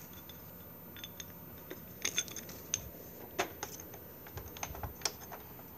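Light, scattered clicks and taps of a Kirby Avalir 2 upright vacuum's plastic and metal parts being handled during assembly: a handful of short sharp ticks spread over a few seconds.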